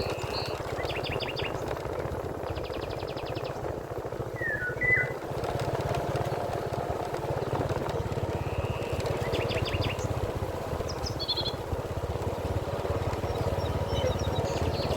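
River water flowing steadily, with birds chirping and trilling over it in short, scattered calls; the loudest is a pair of lower falling notes about five seconds in.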